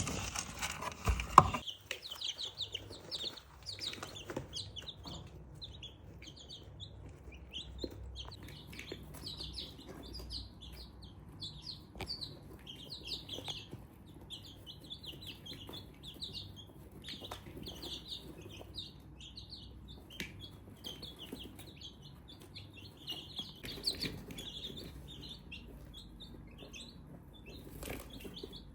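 Chicks peeping steadily in a dense chorus of short, high chirps, with a single sharp knock about a second in.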